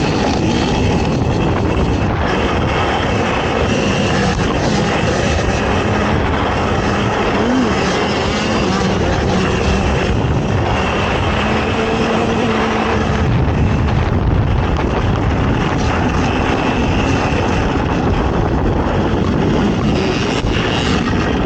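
ATV engine running hard at race pace, its pitch rising and falling with the throttle.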